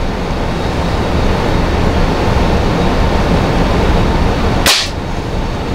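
Steady blowing noise of a running heater with a low hum, and near the end a single sharp shot from a Beeman R9 spring-piston air rifle firing a pellet.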